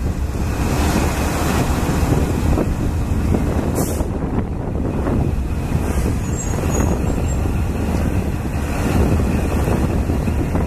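Sri Lanka Railways M6 class diesel locomotive's engine running steadily, a dense low sound, with wind buffeting the microphone.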